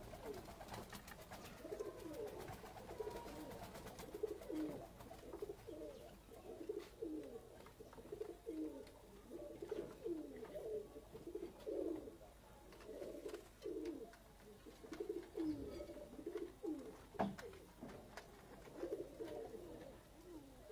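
Domestic pigeons cooing, a steady run of low coos one after another. There is a single sharp knock late on.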